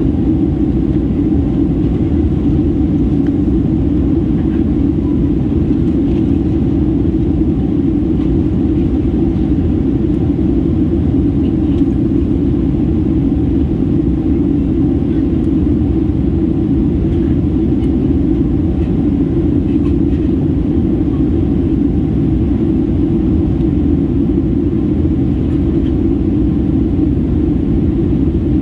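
Steady cabin rumble of a Boeing 737-800 in descent: engine and airflow noise heard from inside the passenger cabin, deep and unchanging.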